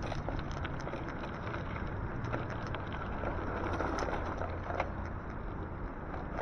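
Steady wind and road rumble from riding an e-bike, with a few light rattles.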